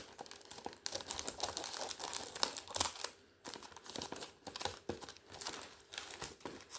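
Delivery package being torn open and handled by hand: irregular crinkling and crackling of the packaging, with a brief pause about halfway through.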